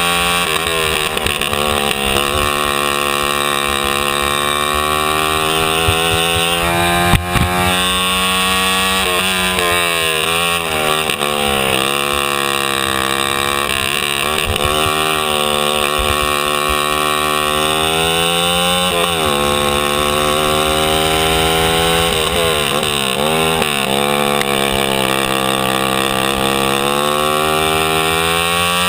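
Racing kart's single-cylinder two-stroke engine running at high revs, its pitch dropping for each corner and climbing again on the straights, several times over. A sharp knock about seven seconds in.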